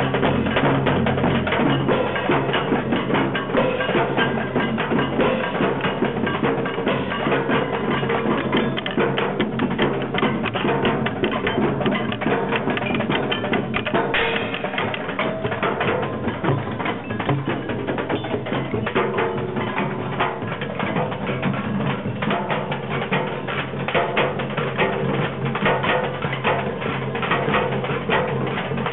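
Group percussion playing: many drums and other struck percussion in a busy, steady rhythm of quick hits.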